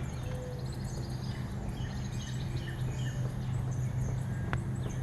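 Several birds chirping and trilling with short high calls, over a steady low hum, with one sharp click near the end.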